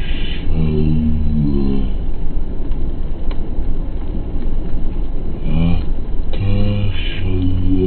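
An iMovie sound effect played at quarter speed: deep, drawn-out pitched tones that bend up and down over a constant low rumble. The tones stop for a few seconds in the middle, leaving only the rumble, then return.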